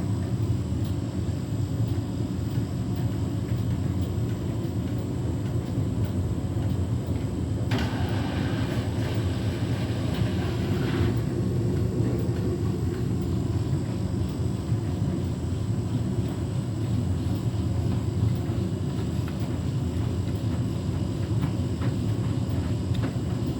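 Beko WTK104121W washing machine running with a steady low rumble as its drum turns a load of flannelette bedding. The load is unbalanced, and the machine is working to redistribute it before it will spin. A hissing noise joins the rumble from about eight to eleven seconds in.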